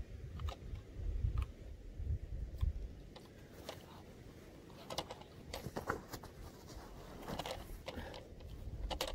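Small clicks and rustles from handling gear while settling behind a rifle, scattered at irregular intervals, with a low rumble in the first few seconds. No shot is fired.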